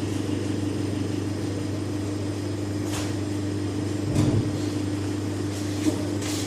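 Steady machine hum, with a few light knocks and a dull thump about four seconds in.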